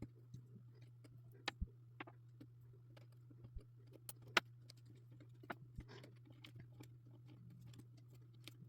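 Faint, irregular clicks and taps of jumper wires being handled and pushed into a breadboard, over a steady low electrical hum.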